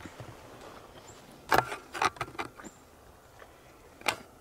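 A few sharp crunches and snaps of steps in dry fallen leaves, bunched together about a second and a half in, with one more near the end, over quiet woods.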